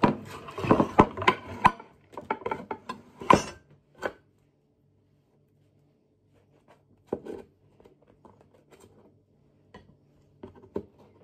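A black nylon kitchen utensil scraping and knocking against a pan, working loose toad in the hole that has stuck because the pan was not oiled. A dense run of sharp scrapes and knocks for the first few seconds, then only a few scattered clicks.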